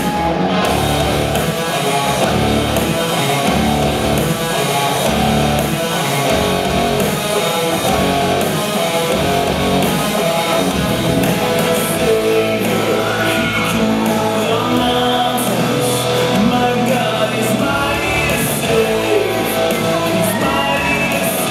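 Recorded rock worship song with guitar and singing, played back over loudspeakers.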